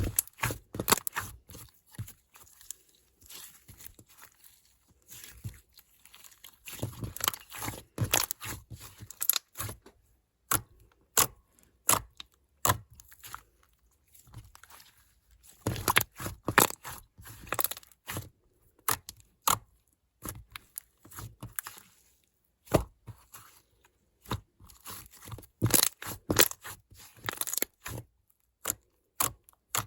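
Hands squishing and stretching slime, giving bursts of crackling, popping clicks in dense clusters, with sparser single pops in between.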